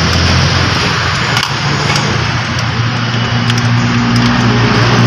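A steady running engine: a loud hiss with a low hum that shifts in pitch a couple of times. A few light clicks come through it as the wires are handled.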